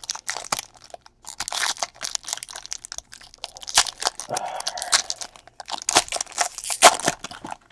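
A foil trading-card pack wrapper being torn open and crumpled by hand: irregular crinkling and crackling with sharp tearing snaps.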